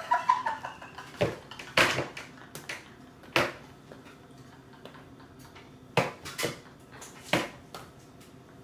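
A few short, sharp clicks and taps scattered over quiet room tone, about eight in all.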